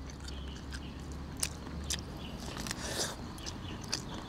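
A person biting and chewing boiled corn on the cob: irregular wet crunches and mouth clicks, a few seconds apart.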